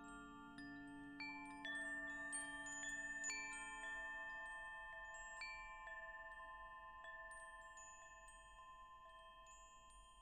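Wind chimes ringing: bars struck at irregular moments, each leaving a long ringing tone that overlaps the others and fades slowly. The strikes are loudest a few seconds in and thin out toward the end.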